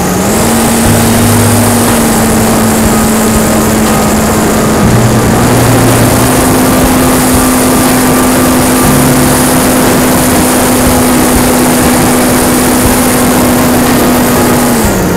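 An RC powered sailplane's nose motor and propeller running under power, heard on board with wind rush. A steady whine steps up in pitch about five seconds in and winds down near the end as the motor is throttled back.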